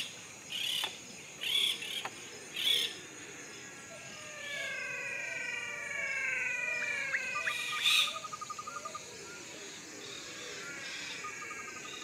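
Dry-forest ambience: a steady high insect drone under short bird chirps, several long falling whistled calls in the middle, and a rapid rattling trill twice.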